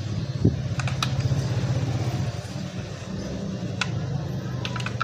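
A steady low engine-like hum, with a thump about half a second in and a few light clicks as an LED headlight bulb and its rubber cover are pressed into a plastic motorcycle headlight housing by hand.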